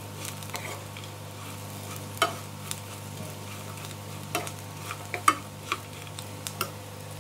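Steel spatula stirring fried chickpeas in a non-stick frying pan, with irregular clicks and scrapes of metal on the pan over a faint sizzle, and a steady low hum underneath.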